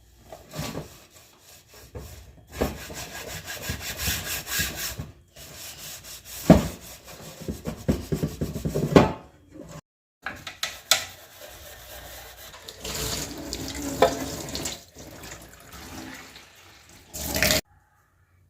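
Water running from a kitchen tap into a sink while things are washed, with occasional knocks; the flow stops halfway and again near the end.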